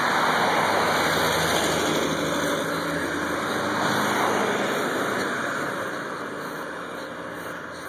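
Road traffic: car engine and tyre noise, loudest in the first half and fading over the last few seconds.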